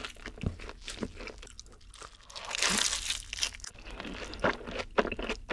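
Close-miked eating sounds: bites and chewing of a cheeseburger and a breaded fried cheese stick, a run of sharp crunches and crackles, loudest a little past halfway.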